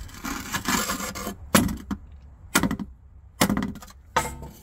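A hammer strikes a punch four times, about a second apart, driving against the metal case of an old crankshaft rear main seal to start it rotating out of its bore. Rubbing and scraping come first, for about a second. By the last blow the seal has started to move.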